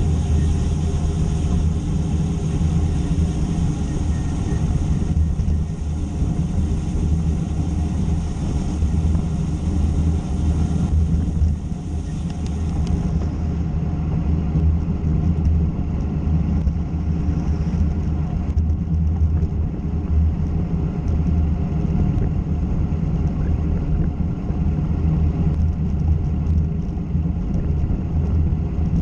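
Steady low rumble of a ride along the road, a continuous low hum with noise above it.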